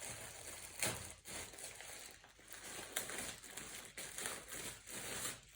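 Thin plastic packaging crinkling and rustling, with a few sharper crackles, as a garment is handled and pulled out of its bag.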